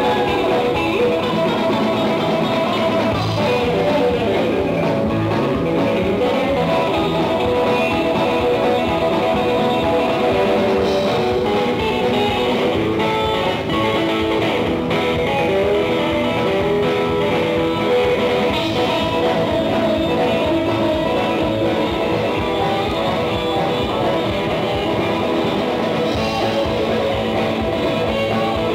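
Live 1950s-style rock and roll band playing an instrumental stretch: hollow-body electric guitar over bass, drums and piano, with no singing.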